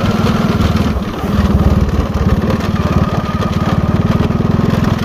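Motorcycle engine running while riding along, its firing pulse steady, easing briefly about a second in and then picking up again.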